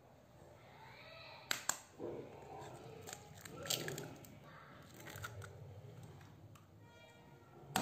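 An egg tapped sharply twice to crack its shell, then broken open by hand so the egg slips into a glass bowl of yogurt; near the end a second egg is tapped.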